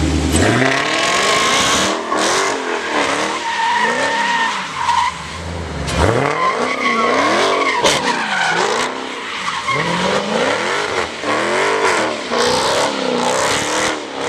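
Supercharged 6.2-litre HEMI V8 of a Dodge Charger Hellcat revving up and down again and again during a burnout, its rear tyres squealing as they spin on the asphalt.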